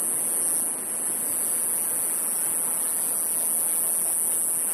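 Steady, high-pitched chorus of insects such as crickets, over a faint low hiss of background noise, with no firework bursts.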